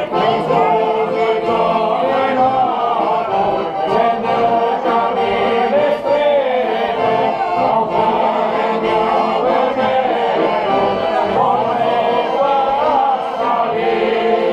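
A group of men singing together in chorus, accompanied by an accordion.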